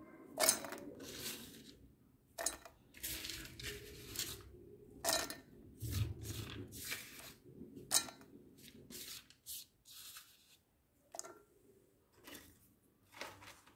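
Peanuts and garlic cloves dropped into a stainless-steel mixer-grinder jar, making a run of irregular light clatters and rattles that thin out near the end.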